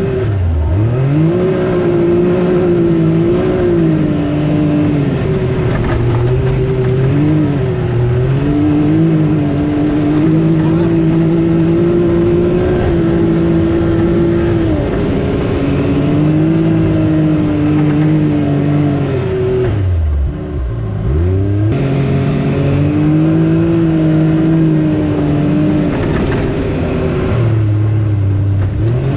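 Can-Am Maverick X3 Turbo RR's turbocharged three-cylinder engine running under load as the side-by-side drives. The revs rise and fall with the throttle and dip sharply, then pick back up, about half a second in and again around twenty seconds in.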